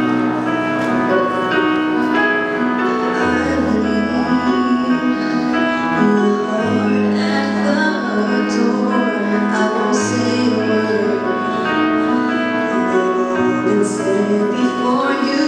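A slow song played over the auditorium's loudspeakers, with held chords over a bass note that changes about every three seconds, and voices singing.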